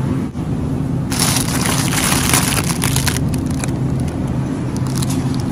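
Crinkling plastic wrap on a bag of white beech mushrooms as it is handled, loudest between about one and three seconds in, over a steady low hum.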